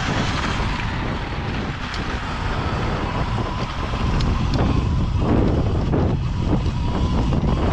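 Wind buffeting the microphone of a camera riding on an electric dirt bike climbing a rocky trail, with a faint steady motor whine. From about halfway on, the tyres knock over loose rocks in quick succession.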